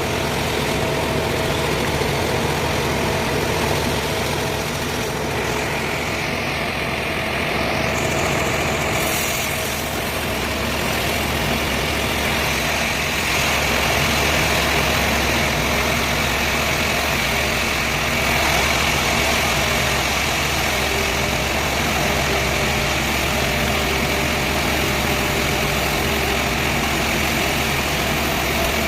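Powered sawmill saw running steadily: a constant machine drone with a steady higher whine over it.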